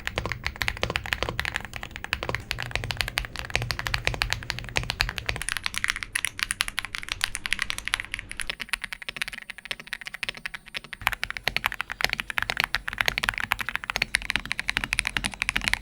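Fast, continuous typing on a mechanical keyboard: a dense run of key clicks and clacks, as in a typing sound test.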